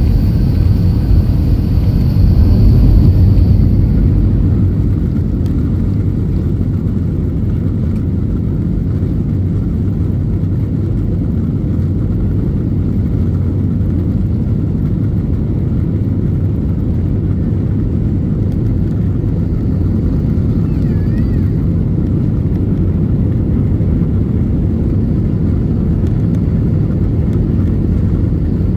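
Jet airliner cabin noise while taxiing: a steady low rumble of the engines and the rolling aircraft. A faint high whine sits over it for the first few seconds, then fades and the rumble settles a little lower.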